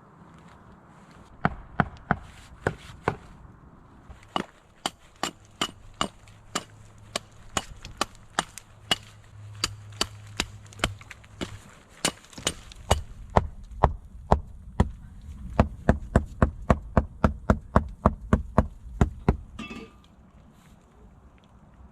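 Wood being chopped with an axe: a long run of sharp, ringing blows, about two a second at first, quickening to three or four a second in the second half, and stopping a couple of seconds before the end.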